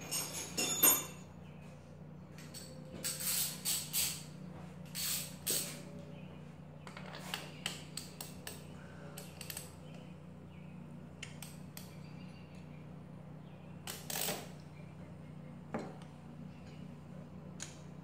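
Metal engine parts clinking and rattling in scattered bursts as hands work at the top of a motorcycle engine's bare cylinder, the loudest clink about a second in, over a faint steady hum.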